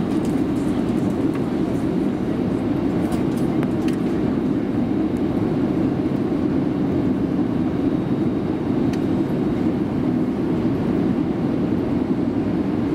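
Steady cabin noise of an Airbus A350-941 on takeoff, its two Rolls-Royce Trent XWB-84 engines at takeoff power. The sound is a dense, even noise with a thin steady tone over it and a few faint clicks.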